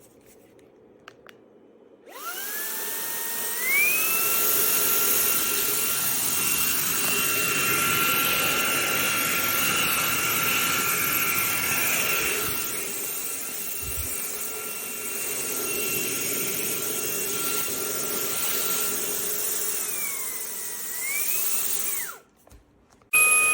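Fanttik Slim V8 Apex cordless handheld vacuum's motor spinning up about two seconds in. Its high whine climbs in two quick steps to a higher speed setting and holds steady, then steps down and shuts off near the end.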